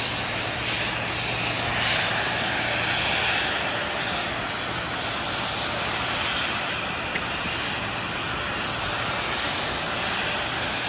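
Fan-type snowmaking guns running: a steady, loud rush of air and water spray.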